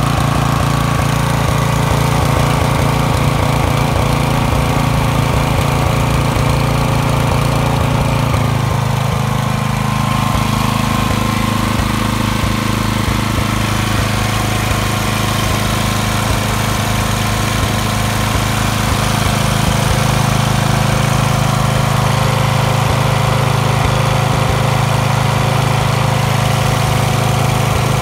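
IWATA SUE-152P engine compressor running. A Robin EY20 single-cylinder petrol engine belt-drives a single-cylinder compressor pump, with a fast, even, pulsing beat. About nine seconds in, the running note changes and settles into a steadier sound.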